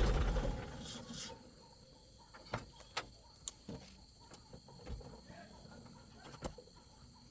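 Heavy vehicle engine noise dies away within the first second or so. What follows is quiet, with a faint steady high-pitched background and a few scattered small clicks and knocks.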